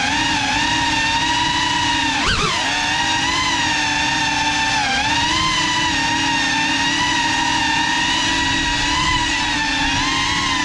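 GEPRC Cinelog 35 cinewhoop drone's motors and ducted propellers whining steadily, the pitch wavering gently with the throttle. About two seconds in, the pitch swings sharply up and back down.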